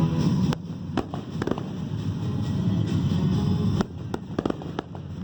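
Aerial fireworks going off in a string of sharp bangs over a low rumble, with a cluster of quick reports near the end. Music plays underneath.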